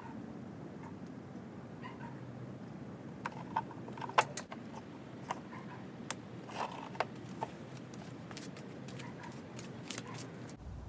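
Irregular sharp clicks and snaps of a hand crimping tool and crimp connectors being worked onto turn-signal wiring, busiest in the middle and loudest about four seconds in, with a few short high squeaks among them.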